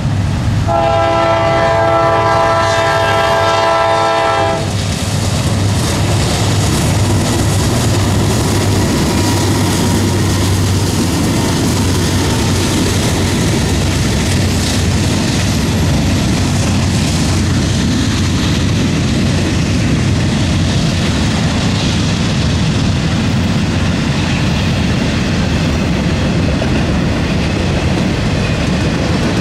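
Norfolk Southern freight locomotive's air horn sounding one long blast of about four seconds, then the eastbound intermodal train's locomotives and cars passing steadily and loudly.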